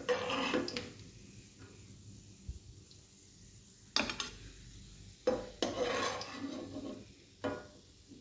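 A metal slotted spoon knocking and scraping against a non-stick frying pan as chicken kebabs are turned and lifted out of shallow oil. The oil sizzles faintly underneath. There are sharp knocks at the start, about four seconds in, twice more a second later and near the end, with scraping after the first knock and after the third.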